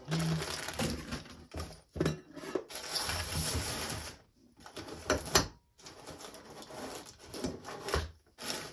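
Handling noise as engine parts are picked up and set down: irregular rustling with a few sharp knocks, the loudest about five seconds in.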